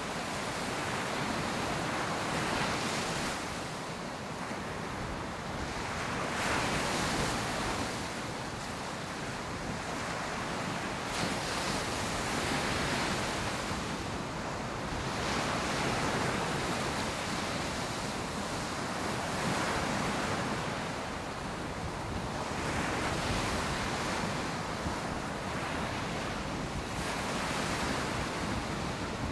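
Ocean surf: waves breaking and washing up the shore in an unbroken wash that swells every few seconds, with a little wind on the microphone.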